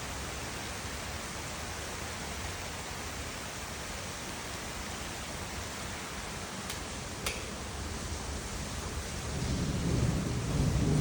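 Steady rain falling, with two faint ticks about two-thirds of the way in and a low rumble swelling near the end.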